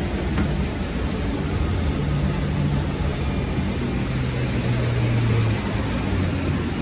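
Interior of a Siemens light-rail car running: a steady rumble with a low hum that drops in pitch about four seconds in, as the train slows on the approach to a station.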